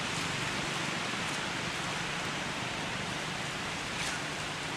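Steady hissing outdoor forest ambience, with a few faint high ticks about four seconds in.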